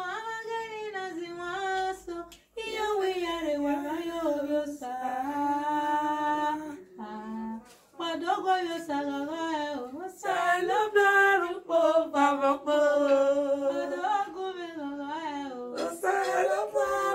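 A woman singing unaccompanied, holding long notes and sliding between pitches, in phrases with short breaths between them.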